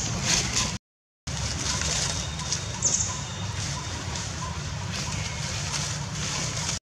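Steady outdoor background noise with a low rumble and the light crackle of dry leaves under a walking long-tailed macaque's feet. The sound cuts out for about half a second about a second in.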